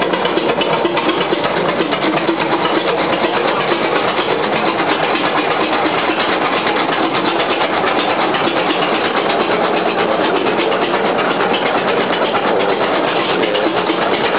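Engine of an antique Aultman & Taylor tractor running steadily at close range, with a fast even beat, while its belt pulley and gearing turn.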